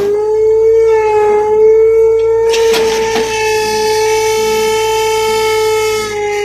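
Komatsu excavator working, giving a loud, steady high whine that wavers slightly in pitch, with a couple of sharp knocks about two and a half and three seconds in.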